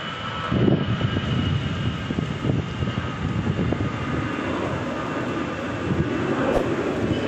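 Wind buffeting the microphone: an uneven low rumble that comes in gusts, over a steady hiss.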